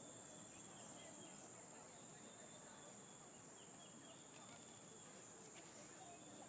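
Near silence, with a faint, steady, high-pitched insect chorus droning without a break.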